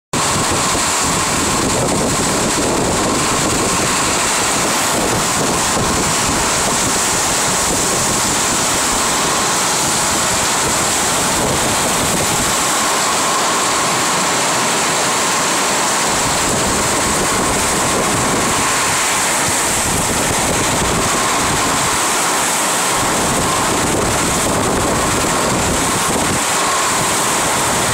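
Heavy tropical downpour: a loud, steady, even rush of rain pouring onto trees and foliage.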